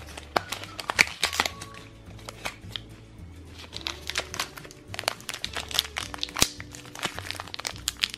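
Plastic packaging of a Shopkins blind basket crinkling in a stream of irregular sharp crackles as it is handled and opened, over background music with a steady repeating bass line.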